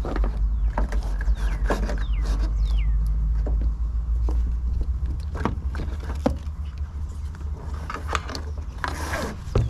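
Handling noise from power cables and a refrigerant hose being fed up through a hole in a truck floor: scraping and rubbing, with scattered light clicks of the cable ends and a few short squeaks. A steady low rumble sits under it and eases about halfway through, and there is a longer scrape near the end.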